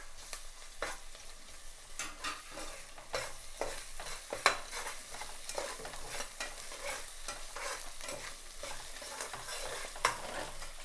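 Onions and ginger-garlic paste sizzling in hot oil in a pan while a spoon stirs and scrapes, with scattered clicks of the spoon on the pan. A sharper knock comes about four and a half seconds in and another near the end.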